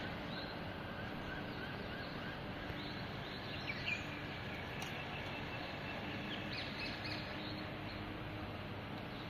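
Birds chirping in short scattered calls, a few clusters of them, over a steady background hum of the city street.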